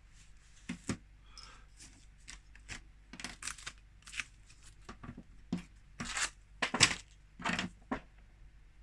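Double-sided adhesive tape being peeled and torn off, a series of short rasping rips with small handling clicks, the loudest rips coming about six to eight seconds in.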